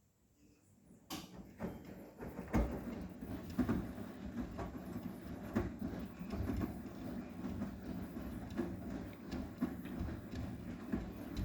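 Arçelik 9120M washing machine drum turning, with wet laundry tumbling and thudding irregularly inside. The run starts about a second in and stops near the end.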